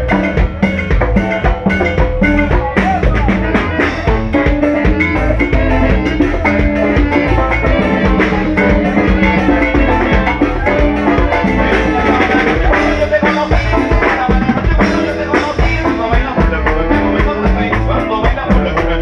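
Live band playing a tropical-style dance medley loudly and steadily, with a drum kit beat, saxophones, electric keyboard and electric guitar.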